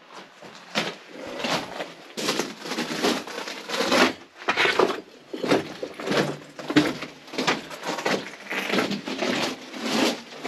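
Footsteps crunching on loose rock and gravel at a steady walking pace, about one step every 0.7 s, in a narrow rock tunnel.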